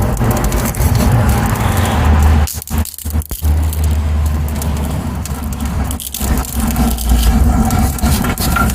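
Small wood fire in a stove crackling with many sharp pops, over a loud steady low rumble that dips out briefly a few times.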